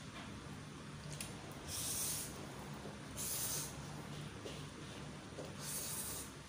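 Mie ayam (chicken noodles) being slurped into the mouth three times, each slurp a short airy draw of about half a second, over a faint steady low hum.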